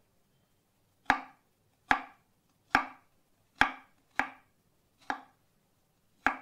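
A large kitchen knife chopping pieces of magali root on a wooden cutting board: seven sharp chops, roughly one a second and slightly uneven, the blade striking the board each time.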